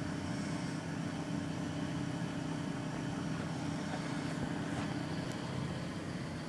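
A man snoring in his sleep: a low, rough rumble that holds at an even level.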